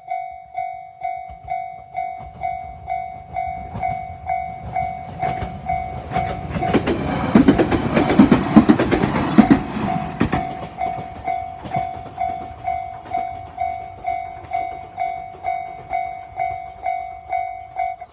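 Level-crossing warning bell ringing steadily about twice a second, with a local train passing over the crossing for about four seconds midway, its wheels clacking over the rail joints. The bell cuts off at the very end.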